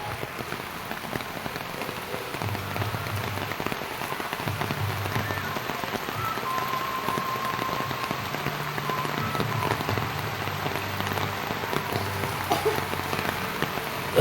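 Steady heavy rain falling, an even patter of drops, with a low hum that comes and goes underneath from a few seconds in.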